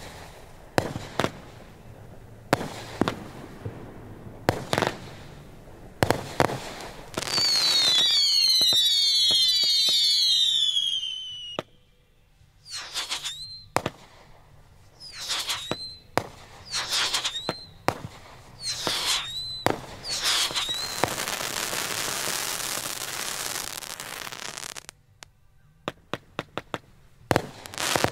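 Aerial fireworks display. Sharp bangs go off for the first several seconds, then a swarm of whistles falls in pitch together. Five single shrill whistles follow, then a stretch of dense crackling, and a quick run of bangs near the end.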